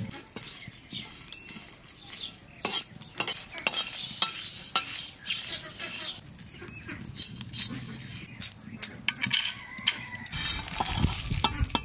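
Flat metal spatula stirring and scraping whole spices (cumin seeds, dried red chillies, cinnamon bark) as they dry-roast in an aluminium kadai, with many sharp scrapes and clicks. Near the end the spices are tipped out of the kadai onto a metal plate with a short rattling rush.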